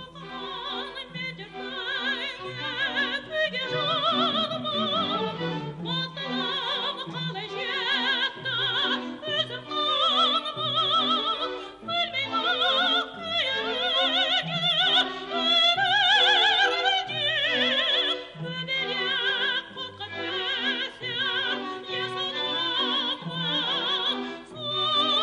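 Kazakh opera excerpt: a woman singing in full operatic voice with wide vibrato, accompanied by orchestra.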